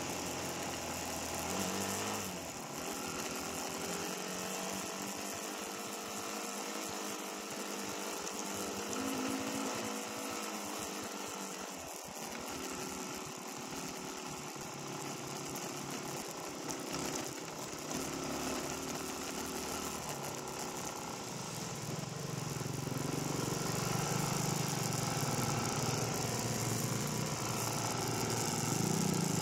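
Dirt bike engines running, their pitch shifting up and down with the throttle, getting louder over the last several seconds.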